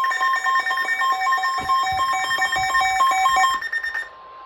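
Weather radio alert alarm: a loud two-tone warble that switches rapidly between a higher and a lower pitch, then cuts off about four seconds in. A faint hiss of radio static follows.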